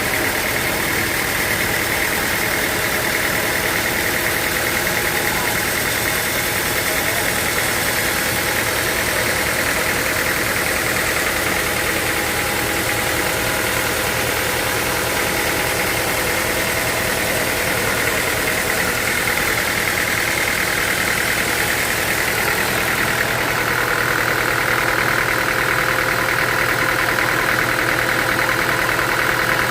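Sawmill machinery running steadily with a high whine, which drops slightly in pitch and grows a little louder in the last quarter.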